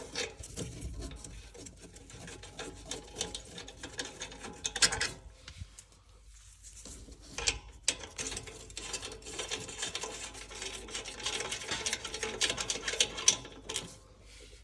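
Ratchet wrench clicking in quick runs while a 10 mm bolt on an exhaust flap actuator is undone, with metal rubbing and a short pause about halfway through.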